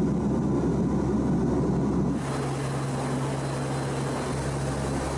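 Turboprop engines of a P-3 Orion droning steadily, heard from inside the cockpit. About two seconds in the sound shifts to a steady low hum with more hiss.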